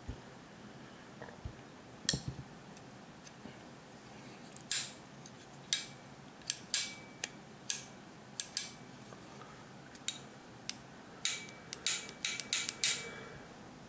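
Small metal tools and carburettor parts being handled on a workbench: irregular sharp clicks and clinks, more frequent in the second half, a few ringing briefly.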